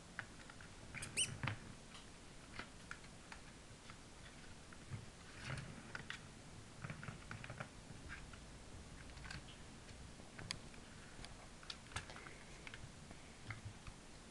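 Kittens playing with a ball in a plastic track toy: scattered light taps and clicks of paws and the ball against the plastic, with soft thumps on the floor. The loudest burst of clatter comes about a second in.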